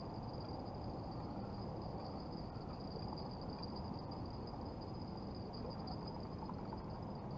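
Insects trilling in one steady, unbroken high-pitched note, over a steady low background rumble.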